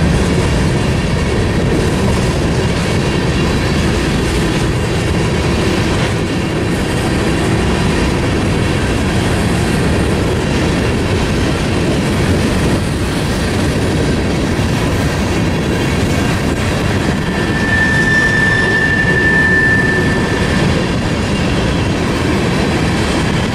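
Freight cars of a long manifest train rolling past, a steady rumble of wheels on rail. About three-quarters of the way through a single high wheel squeal holds for about three seconds.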